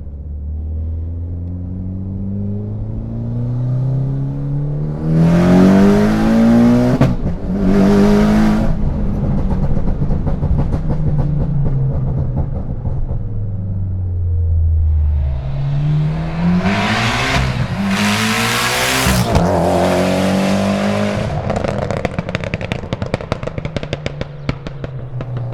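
Turbocharged 2.0-litre four-cylinder of a tuned Mitsubishi Lancer Evolution X RS accelerating hard twice. Each time the engine note climbs steeply with a loud rush of intake and turbo noise and breaks briefly for a gear change. Near the end, off the throttle, the exhaust crackles and pops in quick irregular snaps.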